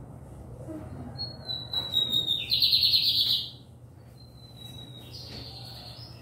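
A songbird singing: a long thin high whistle that falls slightly, running into a loud fast trill about two and a half seconds in, then another high whistle near the end. A steady low hum runs underneath.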